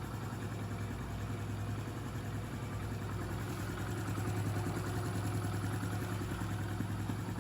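Freshly rebuilt Honda Pop 110i single-cylinder four-stroke engine idling steadily and quietly, with no knocking.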